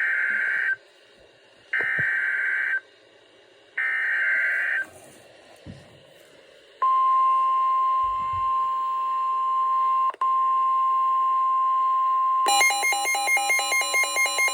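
Emergency Alert System SAME header for a severe thunderstorm warning: three one-second bursts of warbling digital data tones, a second apart. Then a steady single-pitch alert tone begins (the weather-radio warning tone near 1050 Hz), briefly broken about three seconds later, and a rapidly pulsing multi-pitched alarm tone starts over it near the end.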